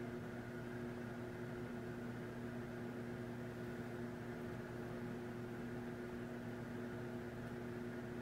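Steady room hum with faint hiss and two constant low tones, unchanging throughout, with no distinct events.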